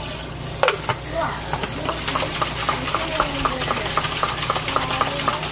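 Tap water running into a Ninja Professional blender's plastic jar and splashing out onto a stainless steel sink, with a quick patter of splashes and drops.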